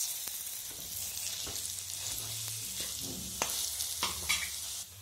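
Ground chana dal paste sizzling in hot spiced oil in a pan. A steel spatula scrapes and taps against the pan several times as it is stirred. The sizzle drops away shortly before the end.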